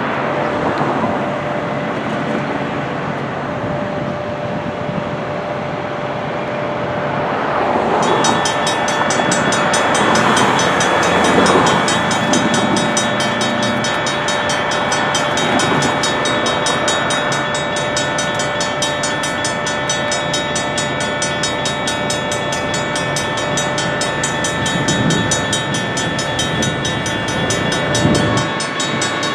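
Union Pacific intermodal stack train passing a railroad grade crossing: steady rail rumble with crossing signal bells ringing. About eight seconds in the sound gets louder and fuller, with a rapid high ringing layered on top.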